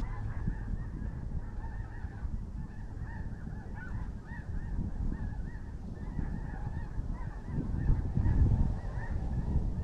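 A flock of geese honking, many short overlapping calls repeating throughout, over a low rumble of wind on the microphone that swells near the end.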